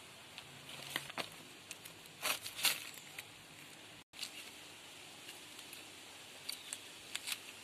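Soft tearing and rustling of ripe jackfruit flesh being pulled apart by hand, in a few short crackles, the loudest two between two and three seconds in and a few more near the end.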